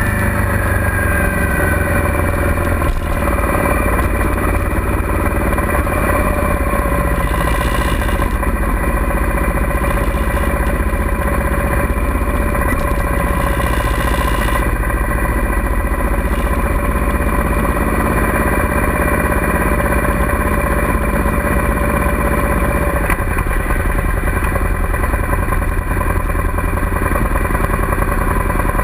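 Suzuki SV650's 90-degree V-twin engine running at low revs as the motorcycle is ridden slowly, heard close up from on the bike.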